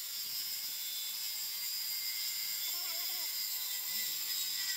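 DeWalt circular saw running steadily as it makes a shallow pass along the edge of a wooden board, cutting a lap joint, with a steady high-pitched whine.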